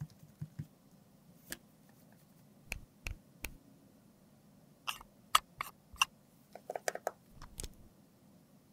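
Scattered sharp clicks and taps of plastic makeup containers (a foundation bottle, a squeeze tube and a cushion compact) being handled and set down. The clicks come thickest from about five to eight seconds in.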